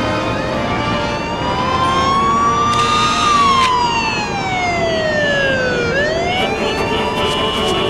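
Siren-like electronic wail that rises slowly for about three seconds, falls for about three, then starts rising again near the end, over background music. A short burst of hiss comes about three seconds in.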